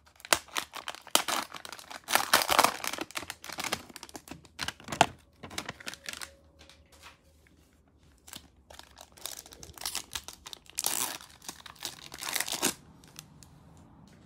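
Cellophane wrapper of a trading-card cello pack being torn open and crinkled: a long run of crackling over the first five seconds, then quieter, then another burst of packaging crinkle about nine to twelve seconds in before it stops.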